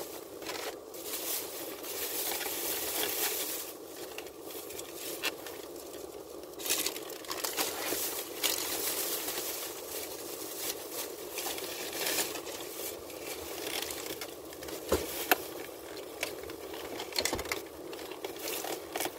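Thin plastic bag crinkling and rustling as used takeout food containers are handled and bagged up, with a couple of sharp knocks in the second half.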